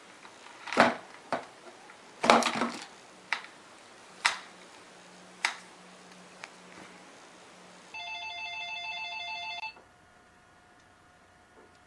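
A few separate sharp knocks and clatters as a cat handles things, then, after a cut, a landline telephone ringing with a pulsing electronic warble for about two seconds before it stops.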